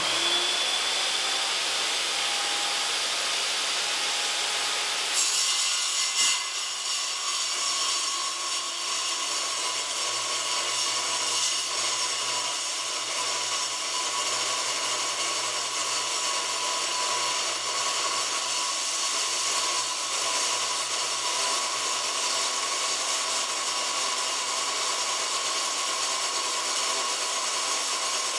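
Handheld circular saw running steadily as its blade cuts through steel plate, a continuous high grinding hiss with a steady whine. The cut grows brighter and harsher about five seconds in.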